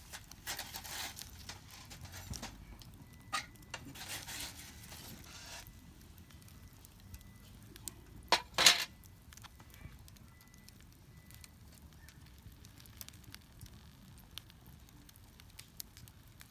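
Campfire crackling with scattered small pops and a faint hiss, then two sharp, loud cracks about halfway through.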